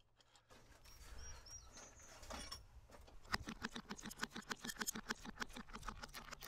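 Rapid, regular clicking, about six a second, starting about three seconds in, from the engine bay of a military truck's diesel that has run out of fuel and is being primed and turned over to restart it.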